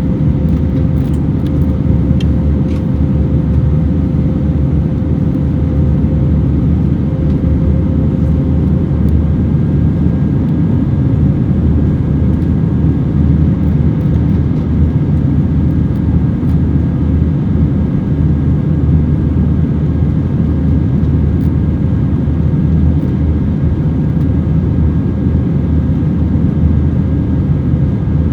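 Steady cabin noise inside an Airbus A321-200 airliner in flight: the constant low rush of its engines and the airflow over the fuselage. A faint whine sits on top and fades out about nine seconds in.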